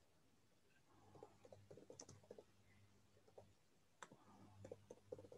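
Faint, irregular clicking of typing on a computer keyboard, with a sharper click about two seconds in and another about four seconds in.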